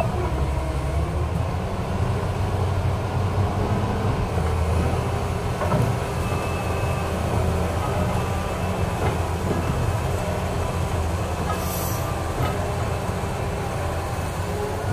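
Hydraulic excavator's diesel engine running steadily under load as the boom swings and lifts, with a few faint knocks.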